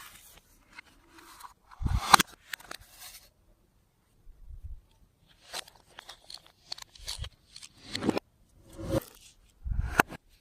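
Close-up handling noises of things being worked into slime: irregular crackles, snaps and soft thuds with short quiet gaps. The loudest, with a low thump, comes about two seconds in and a sharp snap near the end.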